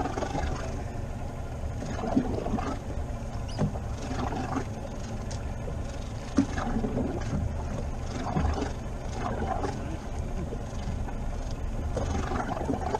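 Sea water sloshing against the hull of an inflatable boat over a steady low rumble, with a couple of sharp knocks on the boat, the first about two seconds in.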